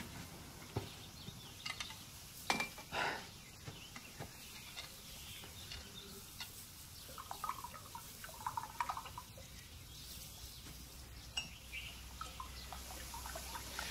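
Faint clinks and handling of china coffee cups, with liquid poured from a metal hip flask into a cup near the end.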